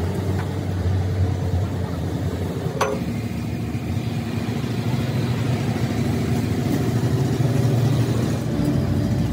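Steady low engine rumble, with one sharp clink about three seconds in.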